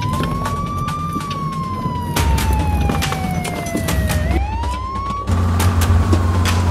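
A siren wailing: its pitch slides slowly down, sweeps quickly back up about two thirds of the way in, then slides down again. Beneath it is music with a loud deep bass line and sharp percussive hits.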